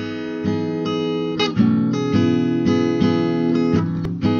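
Intro music of strummed acoustic guitar chords, re-struck about twice a second.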